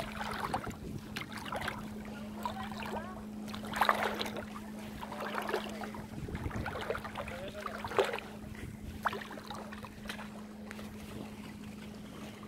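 Bare feet wading through shallow sea water, with soft irregular splashes and swishes as each foot moves, the strongest about 4 and 8 seconds in. A steady low hum runs underneath.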